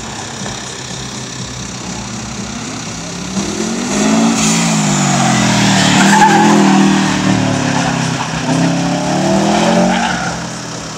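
Subaru Impreza STI's turbocharged boxer engine driven flat out, its revs rising and falling over and over through gear changes and corners. It swells about three seconds in, is loudest in the middle and falls back near the end.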